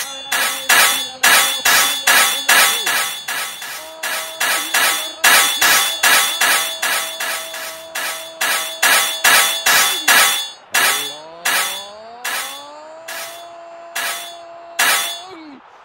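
Knife point stabbing down onto a wooden tabletop over and over in the knife game, with sharp strikes about three a second that slow to about one a second in the last few seconds. A steady tone hums underneath and glides up in pitch about eleven seconds in.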